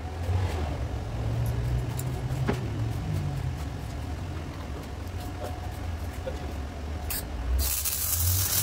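Steady low machine hum. About a second before the end, a loud, harsh hissing burst from metalwork on the car's rear wheel arch that throws sparks.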